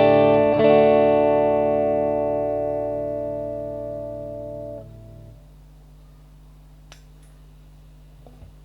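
Telecaster-style electric guitar chord struck and left to ring, fading slowly for about four seconds before it is muted. After that only a steady low amplifier hum remains, with a couple of faint clicks.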